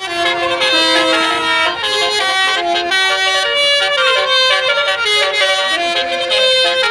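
Indonesian bus telolet horn playing a quick tune: several air-horn tones sound together and step from note to note every fraction of a second.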